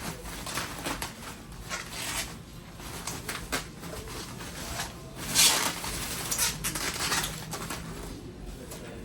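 Rustling, scraping and light knocks of packaging being handled, irregular, with the loudest rustle about five seconds in.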